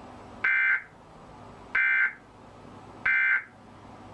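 Emergency Alert System end-of-message data tones: three short, raspy digital squawks about 1.3 seconds apart. They are the coded signal that closes an EAS message, here ending the national test.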